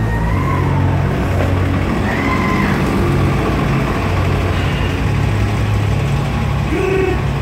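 City street traffic: a vehicle's engine running close by, a steady low rumble that holds at an even level.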